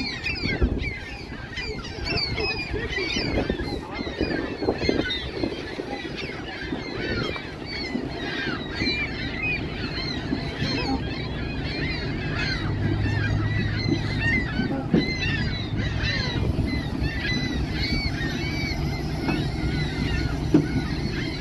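A flock of waterbirds calling, many short overlapping calls without pause, with a low steady hum joining about halfway through.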